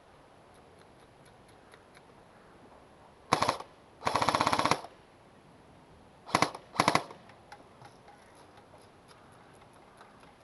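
Airsoft electric rifle firing in bursts. A short burst comes first, then a longer full-auto burst of rapid, evenly spaced shots lasting under a second, then two more short bursts. Faint scattered clicks follow.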